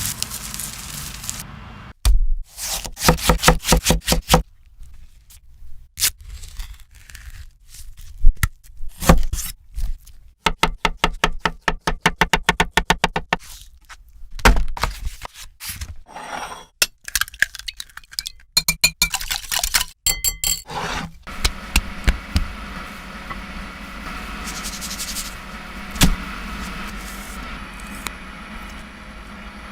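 Quick runs of sharp knocks, about four a second, with scraping between them, as of kitchen utensils striking and scraping on a hard surface. After about twenty seconds the knocking gives way to a steady hum with a single louder knock.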